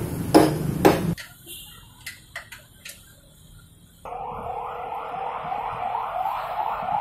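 An electronic alarm siren sounding a rapidly repeated rising whoop, about two a second over a steady tone, starting about four seconds in. Before it, a low hum with sharp knocks cuts off suddenly about a second in, followed by a few light taps.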